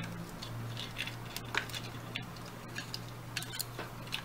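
Scattered small clicks and ticks of fingers handling a plastic double socket and pushing stranded copper wires into its screw terminals, over a faint steady low hum.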